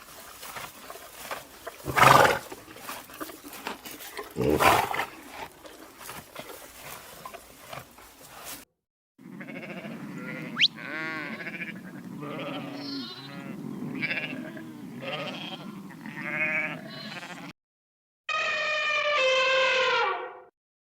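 Young farm animals bleating in a string of separate clips: two loud calls, then many short bleats over a steady low hum, and near the end one long loud bleat falling in pitch.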